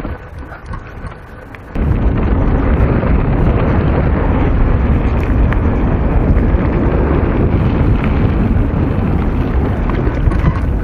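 Loud wind buffeting and rumble on an action camera's microphone while riding a mountain bike at speed, starting suddenly about two seconds in and staying loud and steady.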